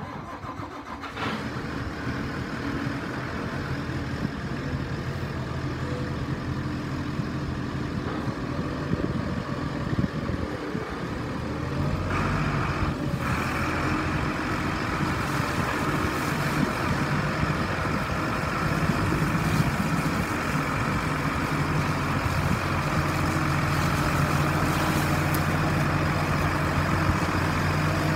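Case IH Magnum 285 tractor's diesel engine running steadily, the note growing louder and fuller about twelve seconds in and holding there as the tractor pulls forward.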